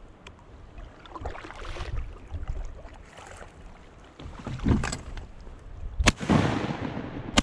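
Kayak paddle dipping and splashing in the river water, then two shotgun shots, the first about six seconds in and the second about a second and a half later, each followed by a ringing echo.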